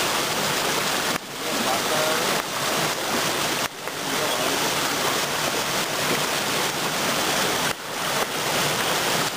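Rushing water of a rocky stream pouring over and between boulders, a steady hiss that drops briefly three times.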